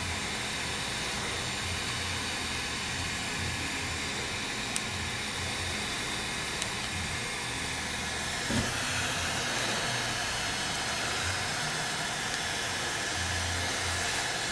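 Heat gun blowing a steady hiss of hot air onto the iPad mini to soften the digitizer adhesive, with a small click about five seconds in and a light knock about halfway, after which the hiss turns slightly brighter.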